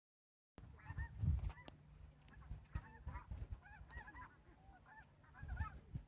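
A flock of snow geese calling: many short, high honks overlapping, starting about half a second in. Low bumps on the microphone are the loudest sound.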